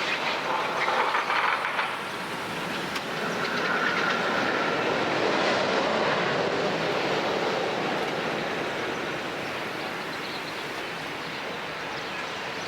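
Steady rumble and clatter of a rail vehicle rolling along its track, louder for the first couple of seconds, with a brief faint wheel squeal a few seconds in.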